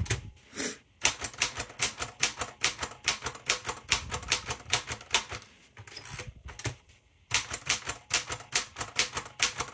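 Royal Deluxe manual typewriter being typed key after key, the typebars striking the platen at about five a second. There is a short break a little past the middle, then the typing resumes. The keys are being tested with shift lock engaged.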